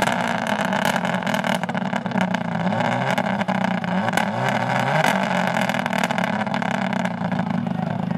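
Rally car's engine revving repeatedly in rising surges, then held at a steadier pitch, as the car sits stuck in snow and mud off the road, trying to drive out.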